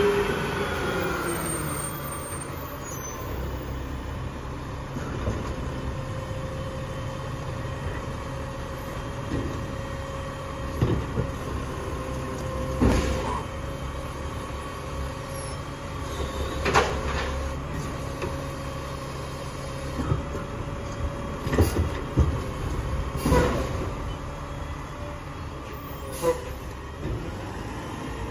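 Mack LR refuse truck's engine pulling away, its pitch falling over the first few seconds, then running steadily at low speed with a steady whine. Several sharp knocks and bangs from the Labrie Automizer side-loader arm working the carts sound in the second half.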